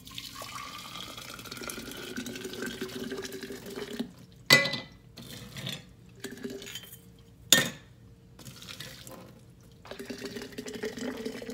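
Hot water poured from a kettle into a glass mason jar to sterilize it, the pouring note rising as the jar fills. Pouring stops about four seconds in, two sharp knocks follow about three seconds apart, and pouring starts again near the end.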